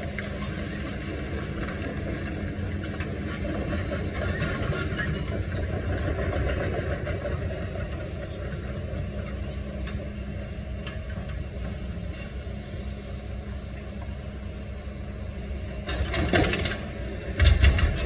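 Heavy excavator's diesel engine running steadily as it handles an Airbus A320 airframe, with scraping and creaking metal. Near the end, sharp metallic clanks, then heavy crashes and thuds as the aluminium fuselage is dropped to the ground.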